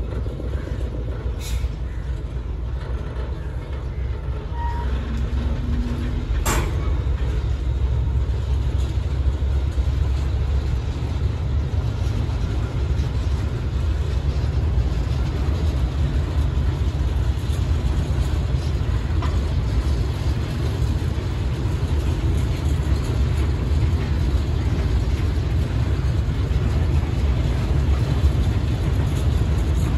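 KTMB Class 26 diesel locomotive hauling a train of flatbed freight wagons away: a steady low rumble of the locomotive and the wagons' wheels on the rails, a little louder after the first few seconds, with one sharp click about six seconds in.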